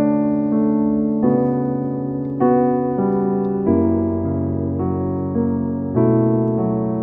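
Background music: a keyboard playing sustained chords that change every second or so.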